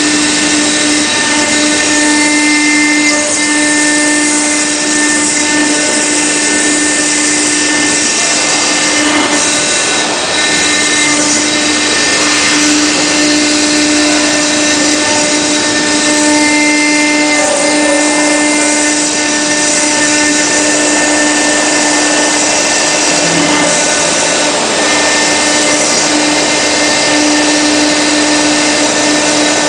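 CNC stone router's spindle running steadily while its bit engraves a marble slab under a water-coolant spray: a steady hum with a continuous hiss of cutting.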